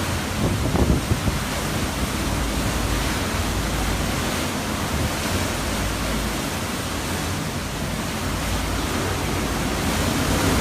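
Hurricane wind blowing hard and steadily, a dense unbroken rush with a low rumble of wind buffeting the microphone.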